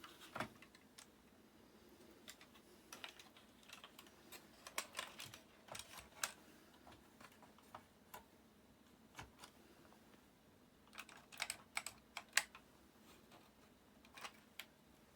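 Irregular light clicks and taps from hands handling small hardware, typing-like, coming in two busier clusters: one about four to six seconds in and another about eleven to twelve seconds in.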